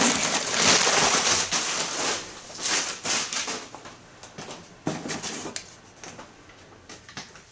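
Crumpled newspaper packing crinkling and rustling as it is pulled out of a cardboard box. The sound is loudest for the first two seconds, then gives way to fainter, intermittent rustles and a few light knocks.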